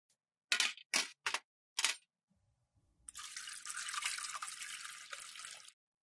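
70% alcohol poured from a bottle into a stainless steel kidney dish holding metal tools: a steady splashing pour of about two and a half seconds in the second half. Before it come four short, sharp clicks.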